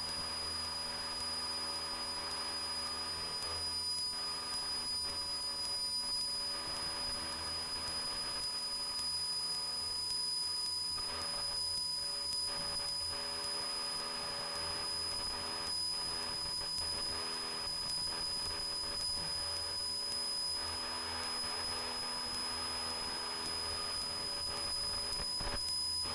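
Cessna 172's piston engine and propeller at full power in the climb, a steady drone with a thin, constant high whine over it.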